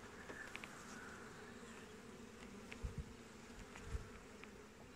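Honey bees buzzing over the open frames of a hive, a faint steady hum, with a couple of soft knocks.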